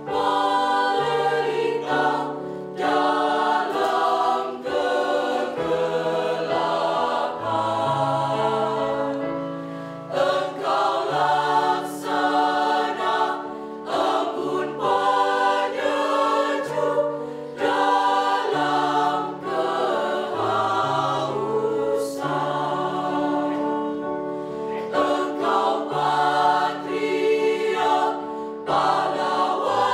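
Mixed high-school choir of girls and boys singing in several parts, a low bass line moving in steps beneath sustained chords.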